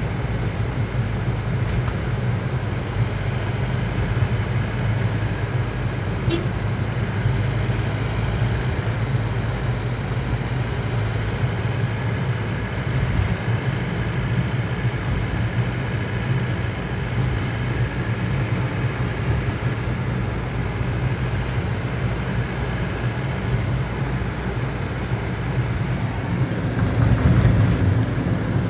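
Steady road and engine noise of a moving car heard inside its cabin: a continuous low drone with a haze of tyre noise, growing a little louder near the end.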